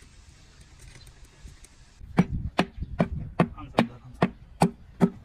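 Rhythmic striking that starts about two seconds in, at about two and a half blows a second, each blow with a short ring.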